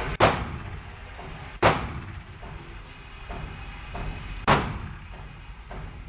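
AR-15 rifle firing three single shots, the second about a second and a half after the first and the third about three seconds later, each with a short echoing tail.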